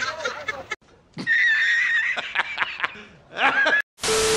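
People chattering and laughing, with a high, wavering held note and a few sharp clicks. Near the end it cuts to loud TV static hiss with a steady beep, a colour-bars glitch transition effect.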